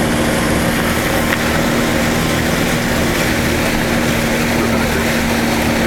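Engine of a small craft running steadily while under way on open water, a constant hum over the rush of water and wind, heard from behind the windscreen.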